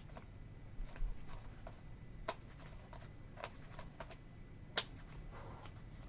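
Trading cards being handled and flipped through by hand: faint scattered flicks and taps, with a sharper click about five seconds in.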